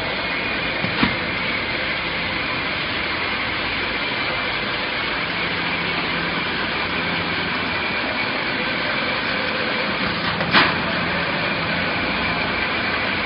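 Steady running noise of a bag palletizing line's roller conveyors and bag-flattening machinery, with a faint steady hum and whine. Two sharp knocks stand out, one about a second in and a louder one about ten seconds in.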